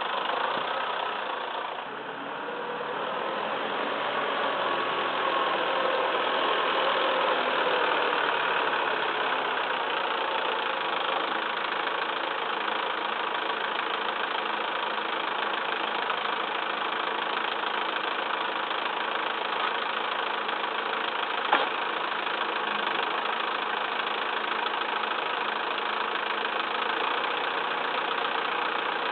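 Massey Ferguson 2635 tractor's diesel engine running steadily, its pitch shifting a little over the first ten seconds. A single sharp knock about twenty-one seconds in.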